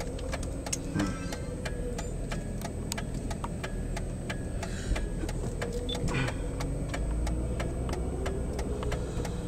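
A car's turn-signal flasher clicking in an even tick-tock rhythm, over the steady low rumble of the car running, heard from inside the cabin.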